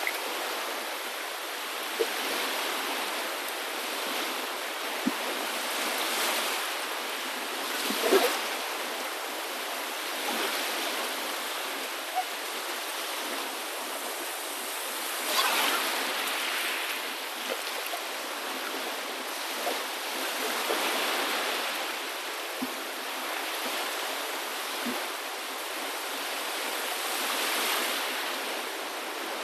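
A steady rush of water that swells every few seconds, with a few small sharp clicks scattered through it.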